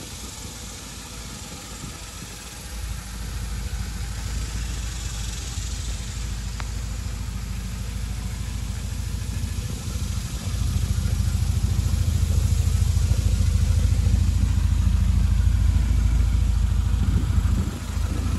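Fiat 124 Spider's twin-cam four-cylinder engine idling steadily. It grows louder about ten seconds in and eases off near the end.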